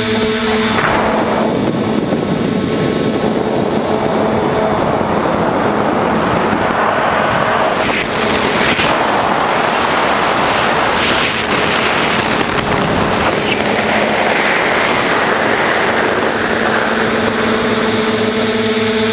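Bluebird tricopter in flight heard from its onboard camera: motor and propeller noise with wind rushing over the camera. About a second in, the steady motor hum gives way to a dense rushing noise, and the hum returns near the end.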